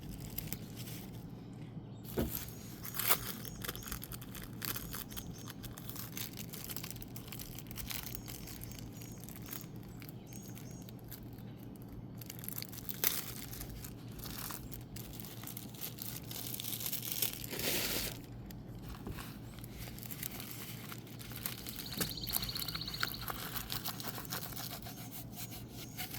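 Plastic packaging crinkling and rustling, with scattered taps and clicks, as a diamond painting kit is unwrapped and handled; a louder rustle comes about two-thirds of the way in.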